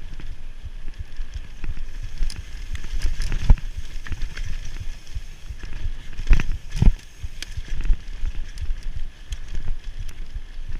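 Mountain bike running fast down a rough dirt trail: a steady rumble of tyres on dirt, broken by many knocks and rattles from the bike over bumps. The hardest jolts come about three and a half seconds in and twice more around six and a half seconds in.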